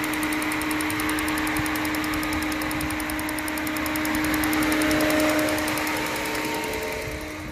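Car engine idling steadily with a constant hiss and a fast, even light ticking, running normally after a radiator replacement for overheating.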